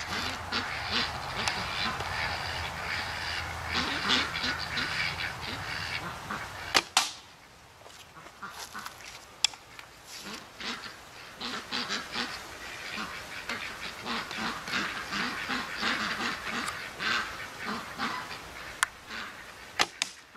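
Birds calling in a dense, chattering run, with a low hum underneath. About seven seconds in, a sharp click (the loudest moment) cuts off the hum and briefly breaks the calling, which then picks up again. A few more sharp clicks come near the end.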